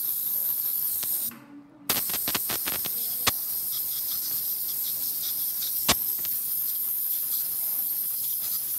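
Ultrasonic dental scaler running on a dog's teeth, a steady high hiss with its water spray. It cuts out for about half a second around one and a half seconds in, then starts again. A quick run of clicks follows, and there is one sharp click near six seconds.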